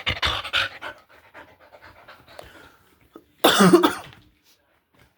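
Pet dog panting close to the microphone, with one short, loud, throaty vocal sound from the dog about three and a half seconds in.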